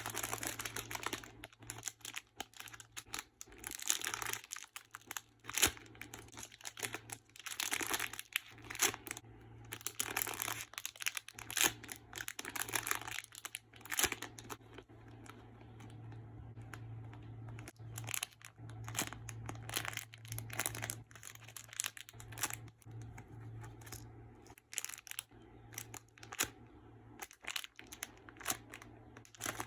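Plastic packaging crinkling and rustling in irregular bursts as it is handled. The rustling is densest in the first half and thinner later.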